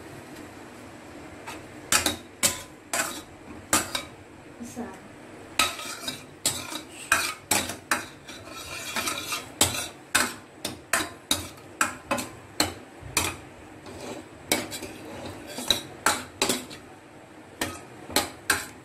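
Steel ladle clinking and scraping against a steel kadai in irregular strokes, a few a second, stirring cashews frying in ghee over a faint sizzle.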